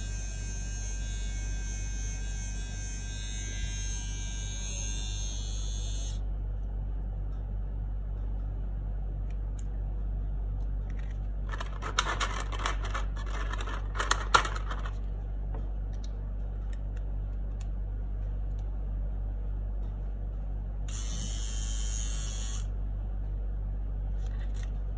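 Small battery facial-hair and eyebrow trimmer motor whirring at a high pitch for about six seconds, then again briefly near the end. In between, a burst of plastic clicks and rattles as its trimmer head is swapped. A steady low hum runs underneath.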